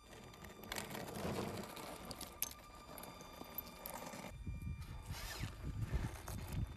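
Traxxas TRX-4 Blazer RC rock crawler climbing over rock, its tyres scrabbling and small stones clicking and clattering, irregular throughout.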